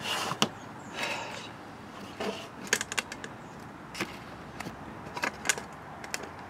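Faint scattered clicks and light rustling as the Echo PB-265L's small two-stroke engine is turned over slowly by hand with its muffler off.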